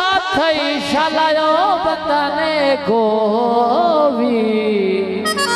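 Punjabi folk singing: a male voice sings a slow, ornamented line without clear words, with gliding turns over a steady held drone, ending in a long note that falls. Near the end an accompanying instrument starts a quick run of stepped notes.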